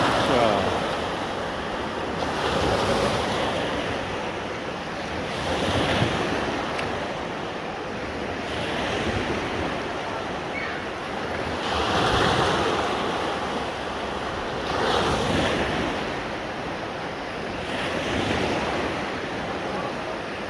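Man-made waves in a wave pool surging and washing, the rush rising and falling in swells about every three seconds.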